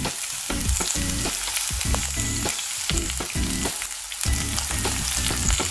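Chopped onion, curry leaves and aromatics sizzling steadily in hot mustard oil in a nonstick kadai on medium flame, with irregular knocks and scrapes of the spatula against the pan as it is stirred.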